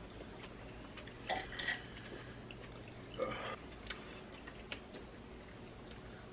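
Quiet eating sounds: chewing and mouth noises in two short bursts, with a few small sharp clicks between.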